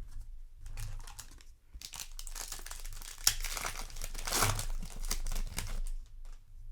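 Plastic wrapper of a trading-card booster pack crinkling and being torn open, a dense crackle loudest in the middle seconds.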